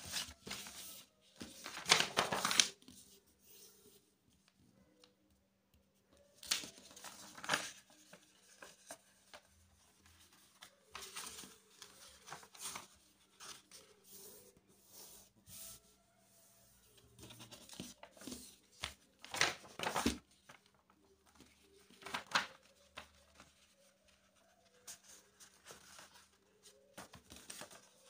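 A sheet of A4 printer paper being handled, folded and creased flat by hand on a tabletop: short bursts of paper rustling and rubbing every few seconds.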